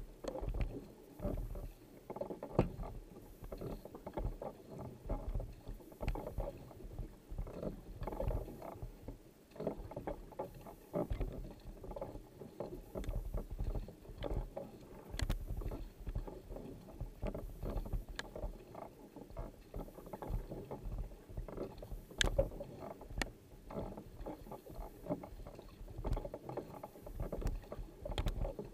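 Kayak paddling: the paddle blade striking and pulling through the water on alternate sides in a steady rhythm, with water splashing off the blade on each stroke.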